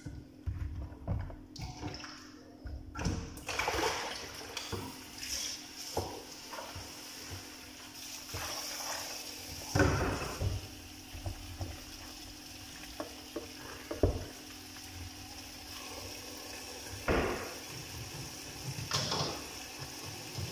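Kitchen tap running steadily into a stainless-steel sink, splashing onto strawberries in a plastic colander as they are rinsed; the flow comes on about three seconds in. Several sharp knocks and clatters of bowls against the sink, the loudest about ten seconds in.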